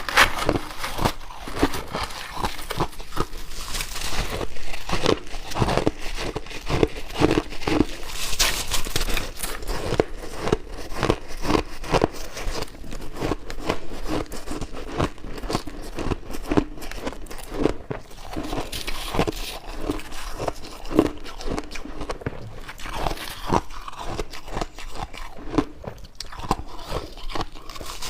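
Close-up crunching of white ice chunks being bitten and chewed: a continuous run of irregular, sharp crunches and crackles.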